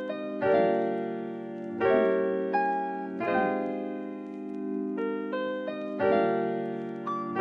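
Background piano music: slow, sustained chords struck about every one and a half seconds, with higher notes added over them.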